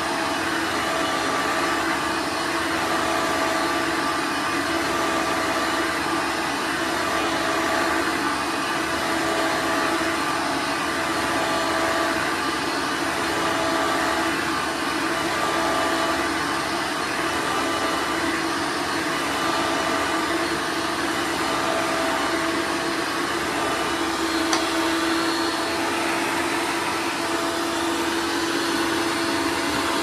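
1992 Hoover Elite 2 upright vacuum cleaner running while pushed back and forth over carpet: a steady motor whine that swells and eases slightly every couple of seconds, with one brief click near the end.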